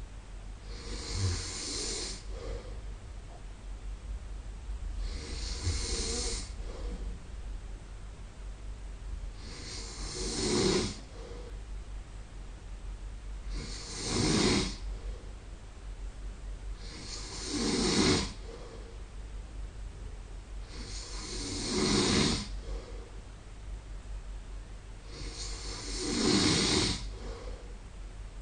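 A man snoring in his sleep: seven snores, one about every four seconds, each lasting about a second.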